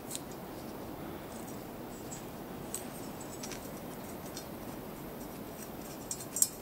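A few faint metal clicks and scrapes as a turbocharger is worked against a cast-iron exhaust manifold clamped in a vice, with a small cluster of clicks near the end. A steady background noise runs underneath.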